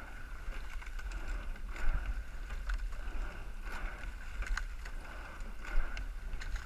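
Rowing eight under way at race pace: oars clicking and clunking in their oarlocks several times over the stroke cycle, over a steady rush of water along the hull.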